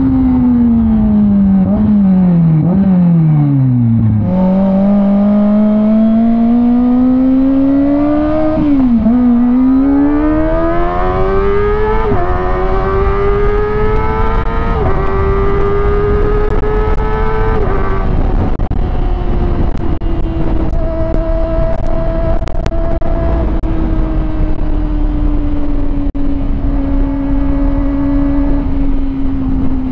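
Kawasaki Ninja ZX-25R's 250 cc inline-four engine on the move. Near the start the revs fall with two quick jumps as the bike slows. It then accelerates, the pitch climbing in rising sweeps through several gear changes, and about eighteen seconds in it eases off to a steady cruise with the pitch slowly sinking.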